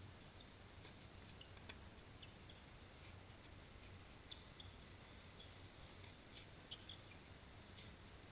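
Near silence with faint, scattered ticks and pops, the sharpest about four and a half and nearly seven seconds in: distant tennis balls being struck during a rally.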